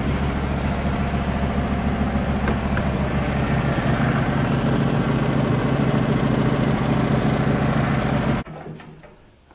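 Engine running steadily at an even speed, then cut off abruptly about eight and a half seconds in.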